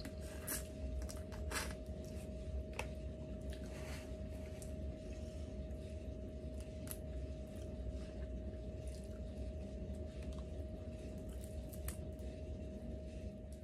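Shell of a cooked, sauce-covered shrimp crackling and clicking as it is peeled apart by hand, with some chewing, in scattered sharp clicks over a steady background hum.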